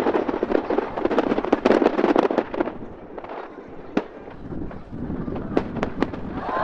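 Fireworks going off: a dense run of rapid crackling pops for the first two and a half seconds, then a lull broken by a few single sharp reports.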